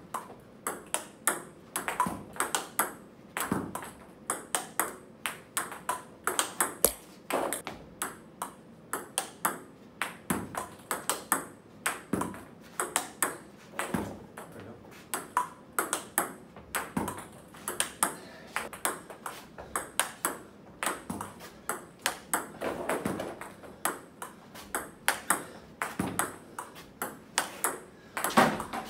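Table tennis multi-ball drill: balls fed one after another, ticking on the table top and cracking off the rubber of the bats in a quick, uneven run of clicks, with the occasional stray ball bouncing on the floor.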